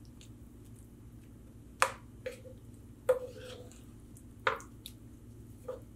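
Wooden spatula stirring potato slices in a thick tomato gravy in a frying pan: soft wet squishing, with about five sharp taps of the spatula against the pan, the first about two seconds in.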